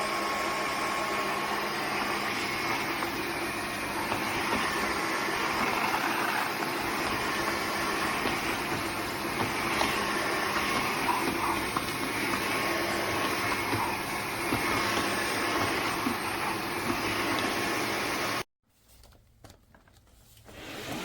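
Dreame H12 Pro cordless wet-dry vacuum mop running, a steady motor and suction noise, switched off abruptly near the end.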